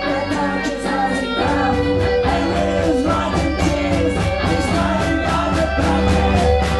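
Live rock band playing, with a woman singing into a microphone over steady drums. The bass and drums get heavier about a second and a half in.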